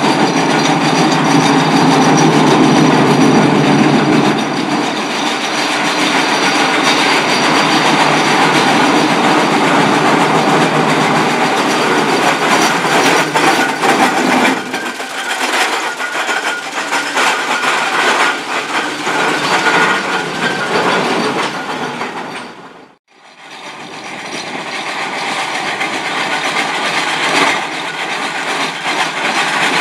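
Steam traction engine running along the road with a continuous clattering, clanking mechanical rumble, loudest as it passes close. The sound breaks off briefly about 23 s in, then a similar engine noise comes back.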